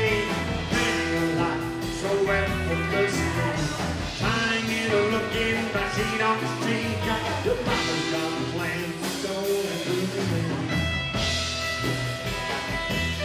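Rockabilly band playing live: strummed acoustic guitar over a drum kit and bass, with singing at the microphone in the first part.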